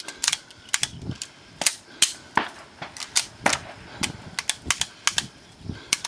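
Rapid, uneven string of gunshots during a timed rifle/pistol shooting stage, about three shots a second, some loud and some softer.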